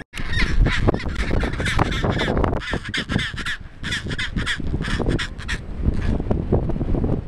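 Chinstrap penguin giving its ecstatic display call, head stretched skyward and flippers spread: a loud, harsh braying of rapid repeated notes that carries on for several seconds.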